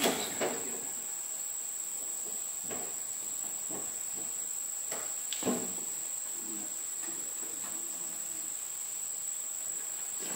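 Steady high-pitched insect chorus, with a few short knocks and bumps from a large cardboard box being handled at a pickup truck's tailgate.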